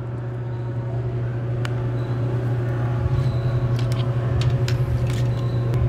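A steady low mechanical hum, like shop ventilation or machinery, that swells a little about halfway through. Over it come a few light clicks of wires and terminal pins being handled in a plastic connector.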